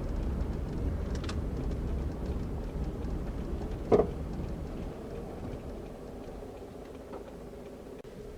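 Low road and running rumble of a 2004 Toyota Camry Solara heard from inside its trunk, dying down after about five seconds, with one sharp clunk from the rear suspension about four seconds in. The clunk is the sign of a worn, leaking rear right strut.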